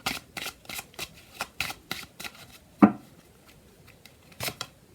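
Tarot cards being shuffled and handled: a quick run of card flicks and clicks for about the first three seconds, a sharper slap of a card near the middle, then a quieter stretch with a couple more clicks near the end.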